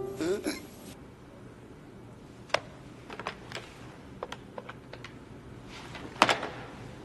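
Corded desk telephone's keypad buttons pressed in a quick irregular series, then a louder clack about six seconds in as the handset is put down on its cradle.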